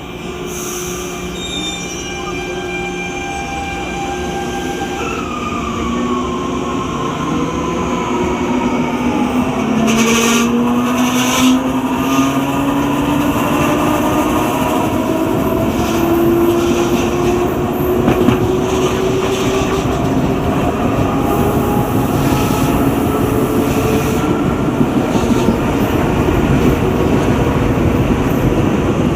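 CAF Série 2000 electric multiple unit heard from inside the car as it pulls away: the traction motor whine first glides down, then climbs steadily in pitch, while the rumble of wheels on rail grows louder over the first ten seconds.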